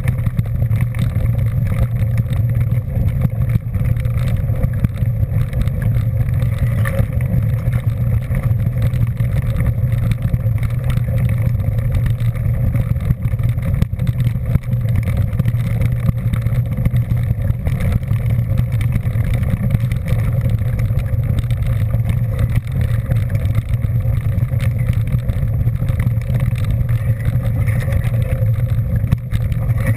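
A vehicle engine running steadily at an even pace: a constant low drone with no change in speed.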